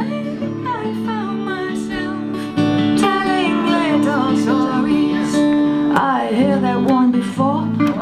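Live acoustic guitar and electric bass playing a song while a woman sings the melody; the music gets louder about two and a half seconds in.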